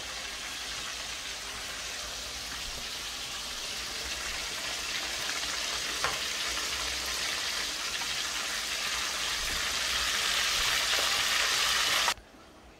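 Seasoned fish roe frying in hot oil in a frying pan: a steady sizzle that grows slightly louder, with a single light knock about six seconds in. The sizzle cuts off suddenly near the end.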